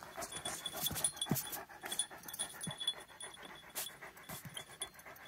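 Large Kangal shepherd dog panting with its tongue out, tired from a long walk.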